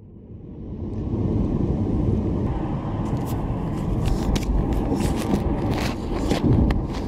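Car driving: a steady low road-and-engine rumble inside the cabin, fading in over the first second, picked up by a camera that has fallen and lies face down. Scattered sharp clicks and knocks come through in the second half.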